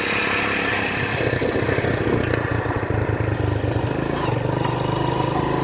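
An engine running steadily at a constant speed, with a continuous high hiss above it.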